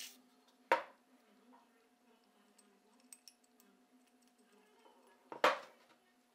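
Two sharp knocks, under a second in and again about five and a half seconds in, with faint metallic clicks between: the cast-iron body and small steel parts of a vintage Stanley No. 3 bench plane handled and set down on a wooden workbench.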